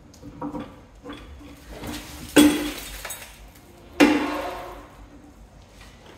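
Metal-on-metal clanks in a workshop: a few light knocks, then two loud ringing clanks about a second and a half apart, each dying away over about a second.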